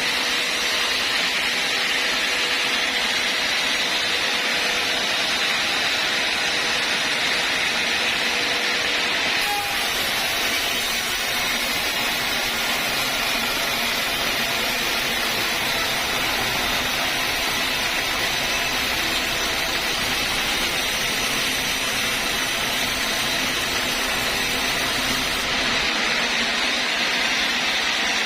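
Sawmill saw running steadily while cutting teak wood, giving a continuous loud hiss and whine with no break.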